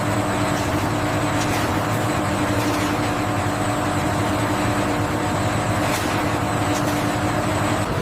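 Processing machinery running with a steady hum and several held tones, with a few faint clicks over it.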